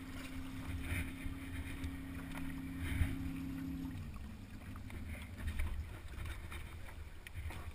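Low wind rumble and knocks on a helmet-mounted camera as the driver climbs into a small hydroplane's cockpit, with a sharp knock about three seconds in. A steady hum runs underneath and cuts off about four seconds in.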